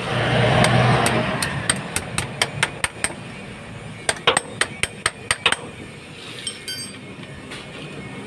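Sharp metallic taps, like a hammer striking metal, in two runs of about two or three a second, after a short loud rush of noise at the start.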